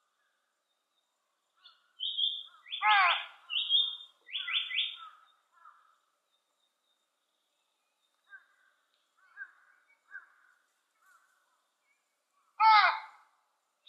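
Japanese paradise flycatcher singing its "tsuki-hi-hoshi, hoi-hoi-hoi" song: a phrase of high whistled notes, a loud harsh note sweeping down, then three quick notes, about two seconds in. Soft faint notes follow, and another loud down-sweeping note comes near the end.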